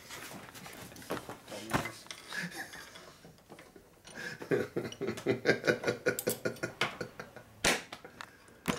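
Metal parts being handled on a workbench: a few sharp clinks and knocks, the loudest near the end. Low murmured voices come in partway through.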